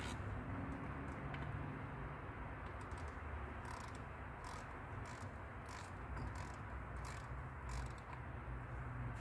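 Ratchet head of a digital torque wrench clicking in short, scattered runs while it snugs the camshaft bolts of a VW 1.9 TDI engine to a light 8 Nm, over a faint low hum.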